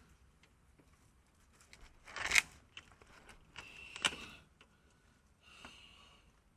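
Clatter of tools and parts being handled during the repair: a few light clicks, a sharp clatter about two seconds in, a second clatter with a brief ring about four seconds in, and a shorter scrape near the end.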